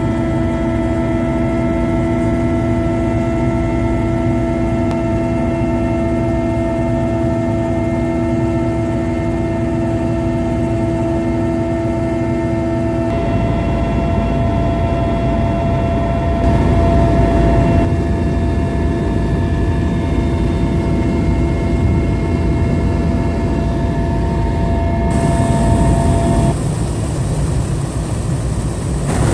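Helicopter cabin noise: a steady turbine whine over the low drone of the engines and rotor, heard from inside the helicopter. The whine's pitch pattern changes abruptly about halfway through and again several times near the end.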